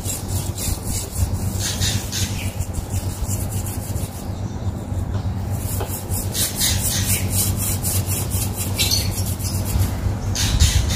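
A red mesh fruit net scrubbed quickly back and forth against the bark of an adenium trunk, several scratchy strokes a second with a short pause near the middle. The scrubbing is rubbing fungus off the bark.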